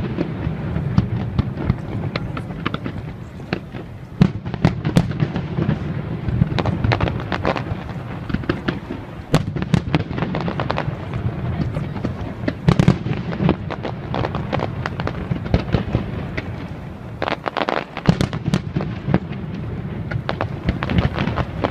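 Fireworks display: a dense, continuous barrage of bangs and crackles over a low rumble.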